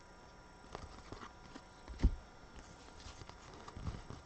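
Trading cards and packs being handled on a table: scattered light clicks and taps, with one dull thump about two seconds in.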